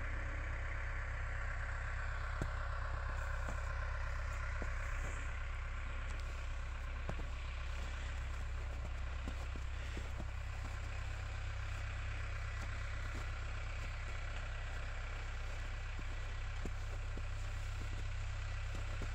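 Cummins diesel engine of a skid steer idling steadily.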